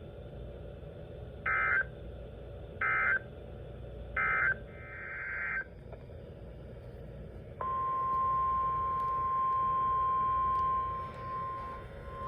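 Weather radio emergency alert signals: three short, harsh SAME digital data bursts about 1.3 seconds apart, the end-of-message code closing a warning, followed by a short hiss. Then, about halfway through, the steady 1050 Hz weather radio warning alarm tone comes on and holds, signalling that a new alert is about to be read.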